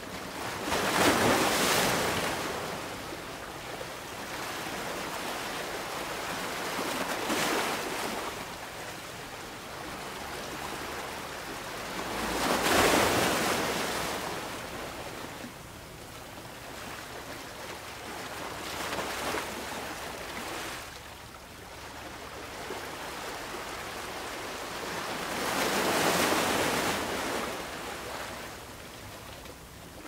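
Sea waves breaking and washing in over a rocky shore: a rush of surf swells up about every six seconds and eases off between, the biggest three at the start, midway and near the end.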